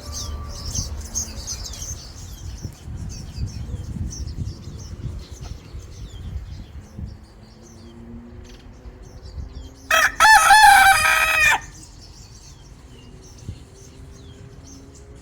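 A rooster crows once, loudly, about ten seconds in, lasting about a second and a half. Faint small-bird chirping goes on throughout.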